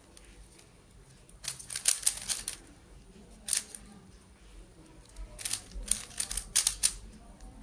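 Plastic stickerless 3x3 speed cube being turned by hand: quick runs of clicking layer turns, a cluster about one and a half seconds in, a single burst near three and a half seconds, and a longer run of turns in the last couple of seconds.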